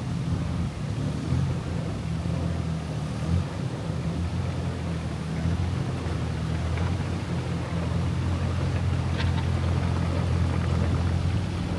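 An engine running steadily at an even, low pitch, with a light click about nine seconds in.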